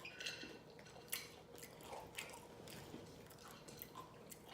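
Faint mouth sounds of someone chewing fried chicken, with soft smacks and clicks every half second to a second.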